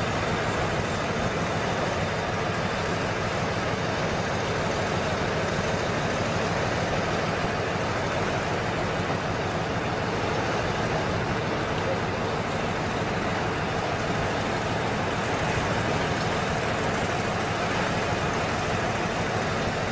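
Off-road truck's engine running steadily at an even pitch.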